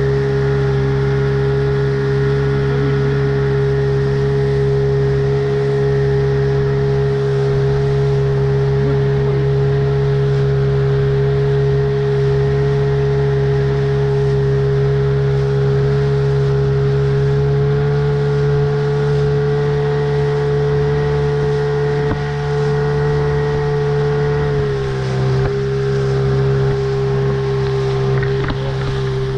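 Sea-Pro 18 hp outboard motor on an inflatable boat, running at a steady cruising speed with a constant drone, over wind and water noise. Its pitch drops slightly near the end as the throttle is eased.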